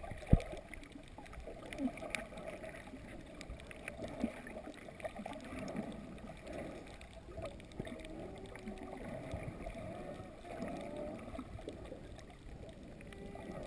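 Underwater recording: a person humming into the water, heard as muffled, wavering tones, over water noise with scattered clicks and one sharp click just after the start.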